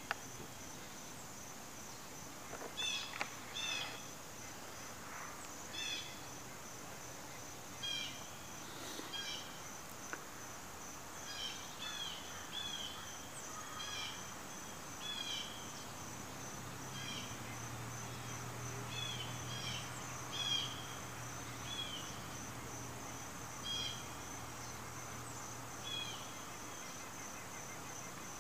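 Insects chirping: a steady, fast-pulsed high trill, with shorter chirps repeating every second or two.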